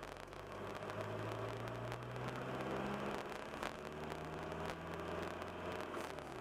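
Car engine heard from inside the cabin while driving and accelerating through city traffic, over steady road noise. Its hum steps down in pitch about three seconds in and again near the end as it shifts up through the gears.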